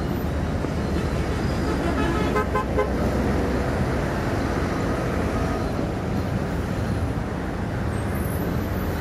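Steady road traffic rumble with car horns tooting, including a short run of toots about two to three seconds in.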